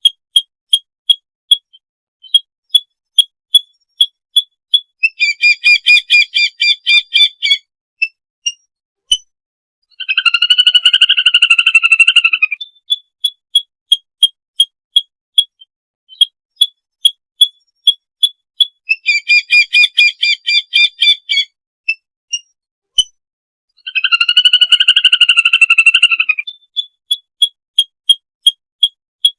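Lesser whistling duck flock-gathering calls: a steady run of short, high whistled peeps about twice a second. Four times they are broken by two to three seconds of denser, many-noted whistling chatter, in a pattern that repeats about every fourteen seconds.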